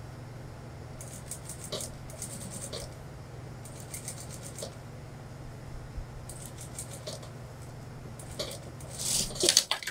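Industrial lockstitch sewing machine stitching trouser fabric: a steady motor hum with several short runs of rapid needle ticking, the loudest just before the machine stops near the end.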